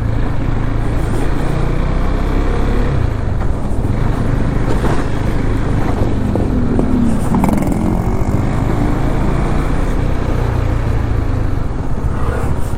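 Motorcycle being ridden on the road: a steady engine drone with road and wind noise, and a brief pitch glide about seven seconds in.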